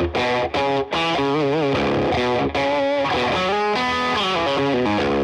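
Background music: a distorted electric guitar plays a melody line with bending, wavering notes.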